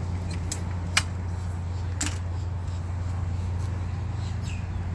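A few sharp clicks from the travel trailer's entry door hardware being handled, the loudest about a second in and another a second later, over a steady low hum.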